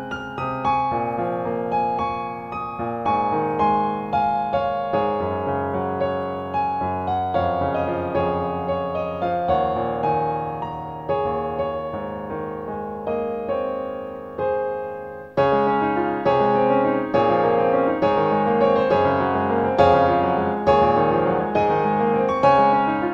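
Piano background music, with a series of gently decaying notes; it grows fuller and louder about two-thirds of the way through.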